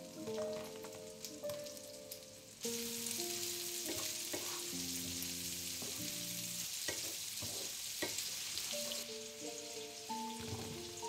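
Garlic and onions frying in butter in a nonstick pan: a steady sizzle that starts suddenly a couple of seconds in and eases off near the end, with the clicks and scrapes of a wooden spatula stirring. A gentle background melody plays throughout.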